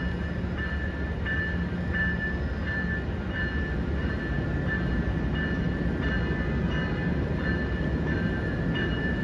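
NCTD Coaster commuter train, cab car leading and pushed by an SC44 diesel locomotive, approaching slowly with a low rumble. A warning bell rings steadily over it, about one stroke every 0.7 seconds.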